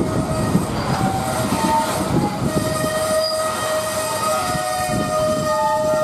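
Loaded coal hopper cars rolling past on a curve, their wheels and trucks rumbling and clattering over the rail joints. Over this, wheel flanges squeal against the curved rail in steady tones that come and go, one held from about halfway through.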